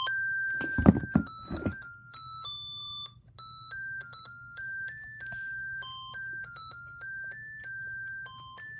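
Sony ICF-C414 clock radio playing its built-in melody alarm: a simple electronic tune of single pure notes stepping up and down, about two notes a second. A few sharp knocks sound about a second in, louder than the tune.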